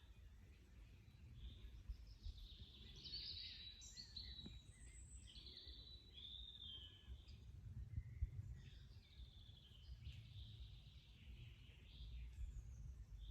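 Forest birds singing and chirping faintly, several short calls and trills overlapping, busiest in the first half, over a steady low rumble.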